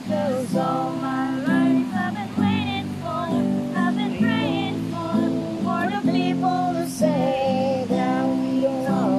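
Acoustic guitar played as accompaniment while women sing a song together.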